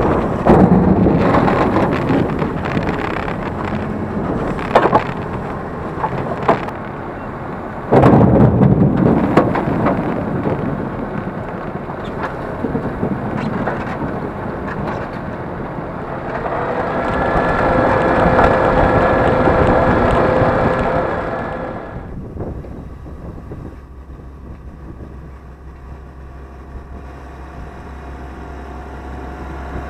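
Farm machinery at work: engines running with the rough, heavy rush of seed potatoes tumbling out of a tipped wooden box into a potato planter's hopper. A steady pitched whine swells in the middle, then a quieter low tractor engine hum runs to the end.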